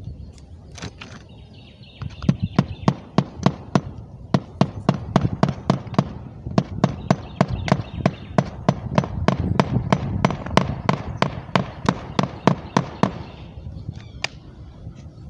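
A rapid, even series of sharp knocks, about three to four a second, starting about two seconds in and stopping near the end.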